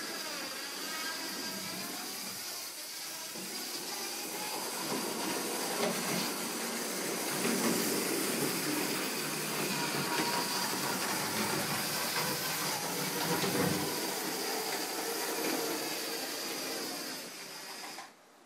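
1964 Märklin H0 Krokodil model locomotive running on the layout track after decades standing unused: its unlubricated drive runs with a steady mechanical running noise, a bit rough. The sound cuts off near the end.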